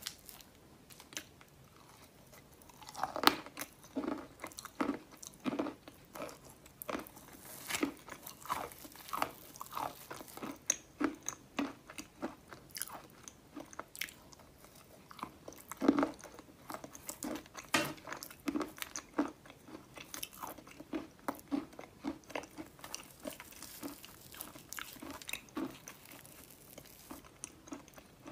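Chalk being bitten and chewed: sharp crunches as pieces snap off between the teeth, followed by crunchy chewing, in an irregular run of crunches. The loudest bites come about three seconds in and midway through.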